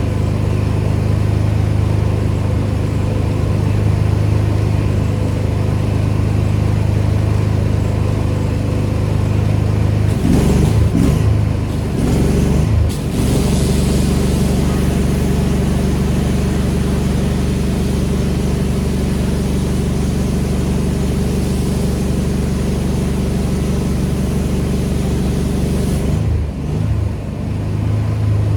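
A pressure washer's engine running steadily under a constant hiss. The engine note wavers and shifts pitch about ten to thirteen seconds in. The hiss drops out briefly near the end.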